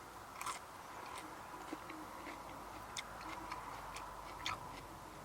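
Faint irregular clicks and crunches of someone chewing raw vegetables, close to the microphone.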